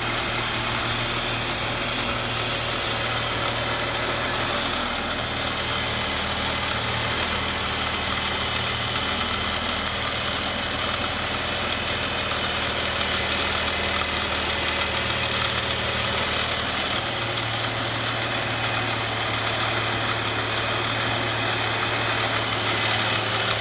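BMW 330Ci E46's 3.0-litre inline-six idling steadily, with a vacuum leak at the air-intake boot ahead of the throttle body.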